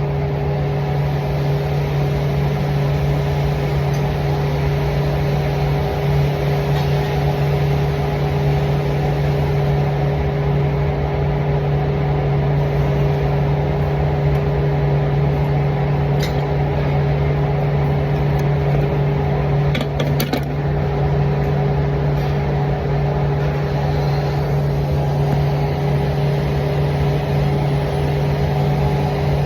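Steady machine hum with a low, even drone and a higher steady tone, and a few faint clicks about 16 and 20 seconds in.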